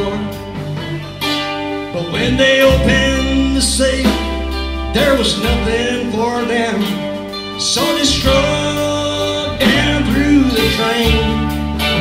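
Live rock band playing an instrumental passage: electric guitar lead with bending, sliding notes over held bass notes and drums with cymbals.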